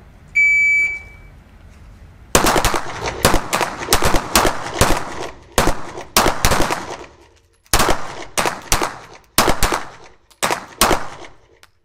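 A short electronic beep gives the start signal, then several semi-automatic pistols fire at once during a timed course of fire, six shots per shooter. The shots come fast and in uneven clusters for about nine seconds, each echoing in the indoor range.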